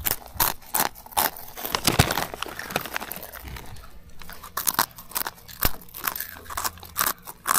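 Children biting and chewing crunchy puffed snacks close to the microphone: a run of sharp, irregular crunches.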